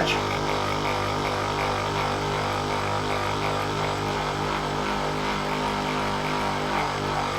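A steady machine-like hum made of several unchanging pitches, holding at an even level throughout.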